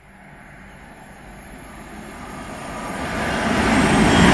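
Virgin Voyager diesel train approaching fast through the station, its rail and engine noise growing steadily louder and becoming loud near the end as it nears.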